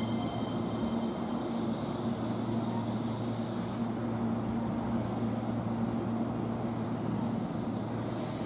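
Keihan 3000-series electric train standing at the platform, giving a steady low hum with two even tones from its onboard equipment.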